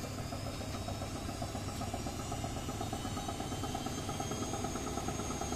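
Edesa front-loading washing machine, with a broken drum spider, running steadily: a constant motor hum with a fast, even rattle from the drum.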